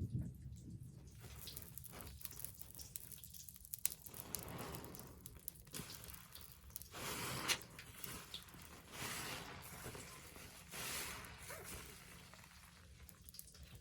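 Soapy, soaked sponge squeezed by hand several times, each squeeze a swell of wet squishing and crackling, with small crisp clicks in between.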